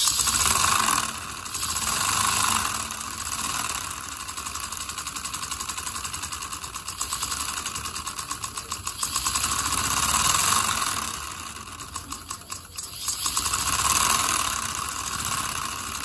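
Homemade V-twin steam engine running fast: a rapid, even clatter of its cylinders and rods with the hiss of exhaust, swelling louder and softer several times.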